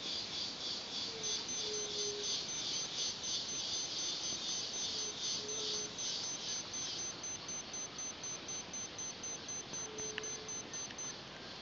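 Forest insects calling: one chirps in a high pulsing trill that beats about twice a second and stops about two-thirds of the way through, while another keeps up a thinner, higher, rapid ticking. Three faint short low notes sound in the background.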